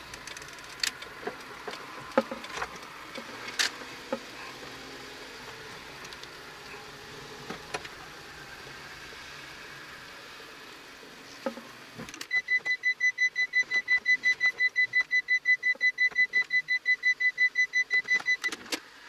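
Road and engine noise inside the cabin of a kei camper van while driving, with occasional light clicks and knocks. About twelve seconds in, the cabin noise drops away and a high electronic beep starts repeating quickly, about six beeps a second, stopping just before the end.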